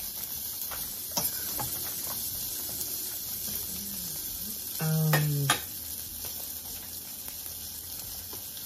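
Polish sausages sizzling steadily on a grill, with a few light clicks. A short hummed voice sound comes about five seconds in.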